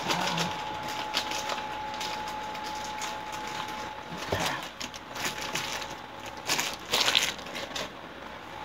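Peeled garlic cloves being popped out of plastic packs and dropped into the clear plastic bowl of a small food chopper: scattered light clicks, taps and crinkling, busiest about six and a half to seven and a half seconds in.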